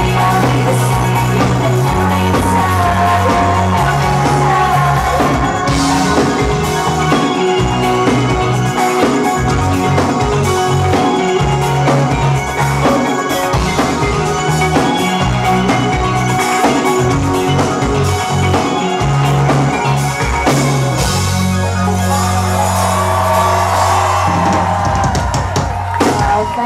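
Indie pop band playing live: a drum kit keeping a steady beat under a moving bass line and guitars, loud. The song stops right at the end.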